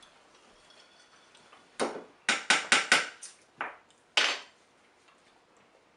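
Cans and cutlery being handled: a quick run of about seven sharp metallic clinks and knocks over two and a half seconds, the last one about four seconds in.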